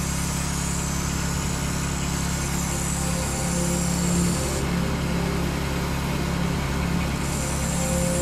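Sportsman 1000-watt portable generator's small petrol engine running steadily at a constant speed.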